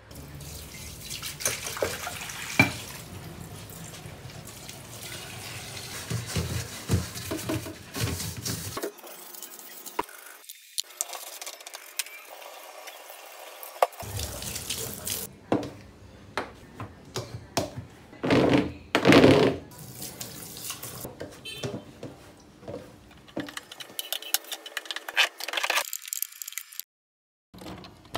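Tap water running into a stainless steel sink as dishes and a wire mesh strainer are washed by hand, with splashing and occasional clinks.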